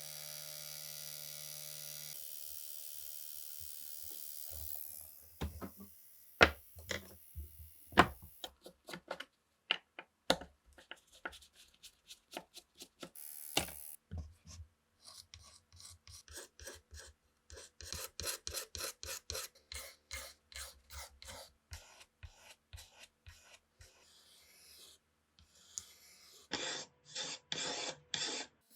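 Hand work on rifle parts: a steady hiss for the first few seconds, then scattered knocks and clicks, and runs of quick rubbing or filing strokes, with four or five heavier strokes near the end.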